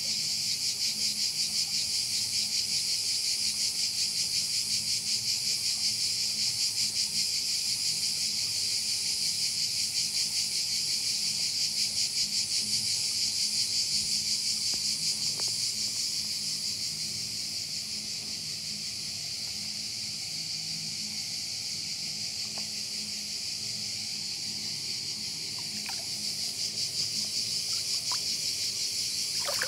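A chorus of cicadas singing: a steady, high, buzzing drone that eases slightly in the middle and swells again near the end.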